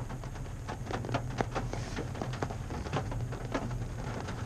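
Raindrops tapping irregularly on the cab roof and windshield of a Toyota Tacoma pickup, over the steady low drone of its engine and tires as it creeps along a wet dirt track, heard from inside the cab.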